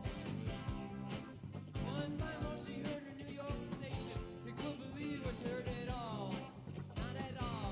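Rock song with a steady drum beat and a lead melody that slides in pitch.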